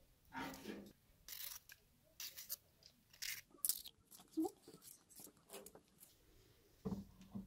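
Kitchen knife slicing through a green bell pepper held in the hand: a series of short, crisp cuts at irregular intervals.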